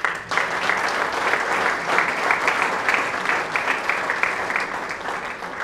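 Audience applauding: a dense, steady mass of hand claps.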